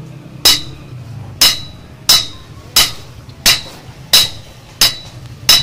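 Hammer blows on a red-hot axe head on an anvil, with eight evenly spaced ringing strikes about two-thirds of a second apart. The axe head is being forged into shape while it is at full heat, ahead of sharpening.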